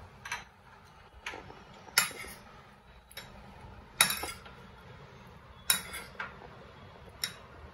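Metal spoon stirring a food mixture in a bowl, knocking against the bowl's side in sharp, irregular clinks about once a second. The loudest clinks come about two and four seconds in.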